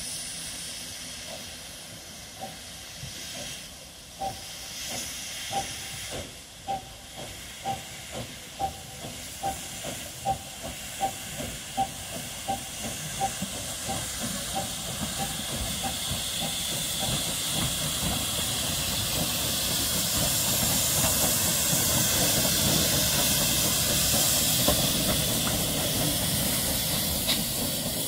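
A steam locomotive working a train: a run of sharp, evenly spaced exhaust beats that quicken, then a loud steady hiss of steam that builds as it draws near.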